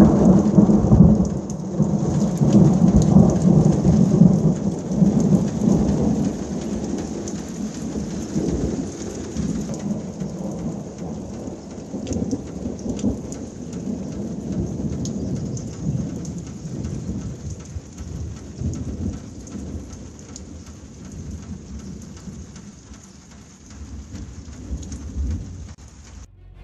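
Long rolling thunder, loudest in the first few seconds and slowly dying away, over a steady heavy downpour of rain.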